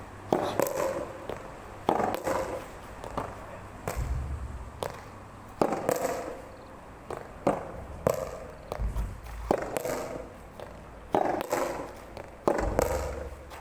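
Soft tennis rally: a string of sharp pops as the rubber ball is struck by rackets and bounces, roughly one to two a second, with low gusts of wind buffeting the microphone.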